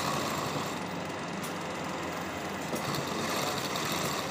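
Black straight-stitch sewing machine running steadily, stitching through denim for a pair of jeans.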